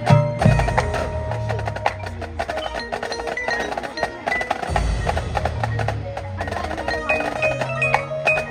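Marching band front-ensemble percussion playing: quick mallet notes on keyboard percussion such as marimba and glockenspiel over sustained low bass tones, with a heavy low hit a little past the middle.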